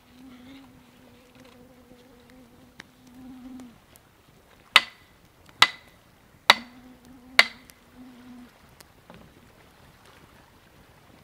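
A flying insect buzzing close by, a steady drone that stops and starts again. Across the middle, four sharp knocks come about a second apart, each with a short ring, louder than the buzzing.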